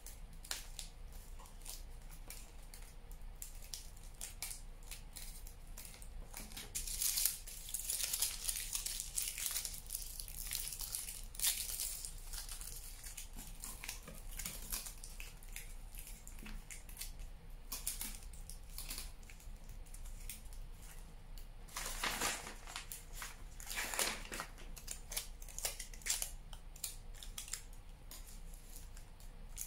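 Aluminium foil crinkling and crackling as it is squeezed and pressed around a wire armature, in repeated bursts, the loudest about a quarter of the way in and again about three-quarters through.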